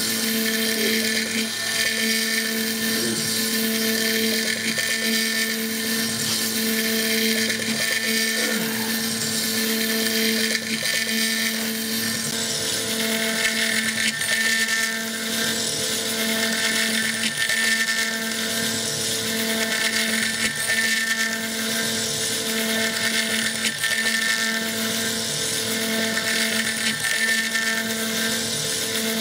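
CNC mill spindle running with a small end mill cutting a Stone Hopea burl wood ring blank turned on the fourth axis: a steady high whine over the hiss of cutting. The cutting hiss gets stronger about twelve seconds in.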